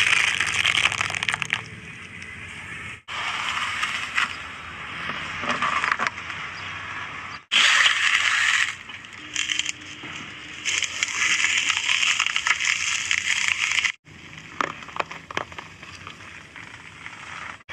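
Objects crunching and crackling as they are crushed under a car tyre, in several short clips that cut off abruptly.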